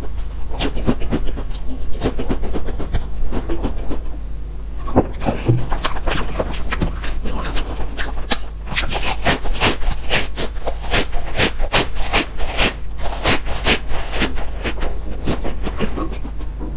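Close-miked biting and crunching of crisp chocolate-coated wafer rolls: a run of sharp cracks and crunches, thickest a little past halfway.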